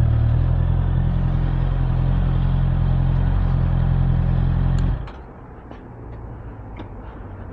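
Honda CBR650R's inline-four engine idling steadily, then switched off about five seconds in, when it cuts out abruptly; the engine is being stopped for refuelling.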